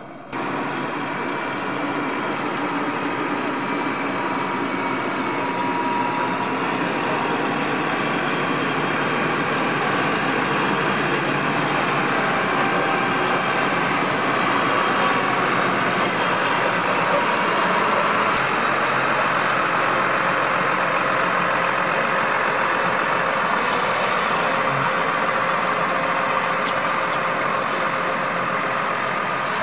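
Motor grader's diesel engine running steadily.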